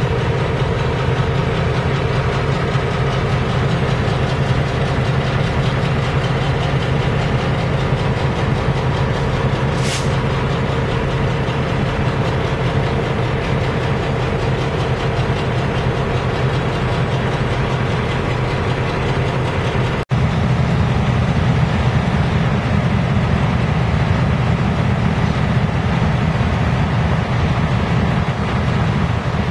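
MP15AC switcher locomotives' two-stroke 12-cylinder EMD diesel engines running steadily, with a short hiss about ten seconds in. About twenty seconds in the sound breaks off for an instant and comes back lower and heavier.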